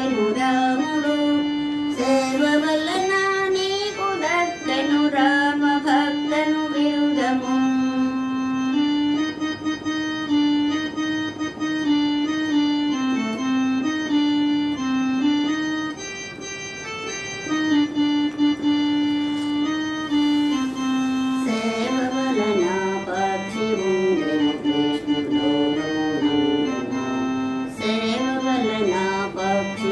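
Electronic keyboard played on an organ voice: a melody of held, sustained notes over steady chords.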